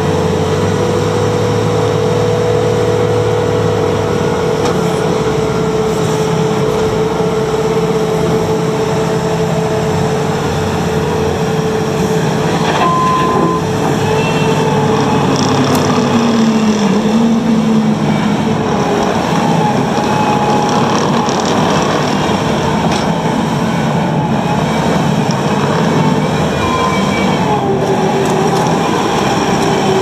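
2019 Bobcat T740 compact track loader running and driving on gravel: its diesel engine working under load, with a steady whine for the first several seconds, then squeals and whines that rise and fall in pitch as it turns.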